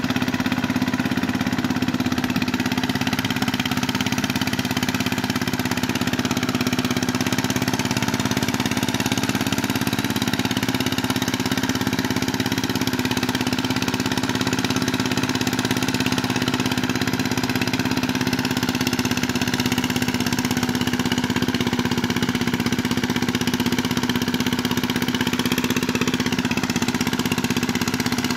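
Small engine of a mud boat tiller running at a steady speed while it churns through a flooded rice paddy: an even drone with a strong hum that holds the same pitch throughout.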